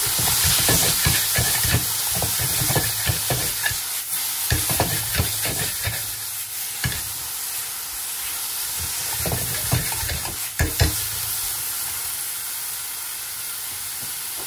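Sliced onions, tomatoes and green chillies sizzling in a frying pan while a silicone spatula stirs and scrapes them, with repeated knocks of the spatula against the pan. The knocks cluster in the first half and again around ten seconds in, and a sharp knock about eleven seconds in is the loudest.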